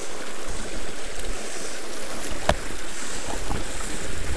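Fast, shallow river water rushing over a rocky riffle: a steady hiss of flowing water. A brief rising whistle cuts through about halfway through.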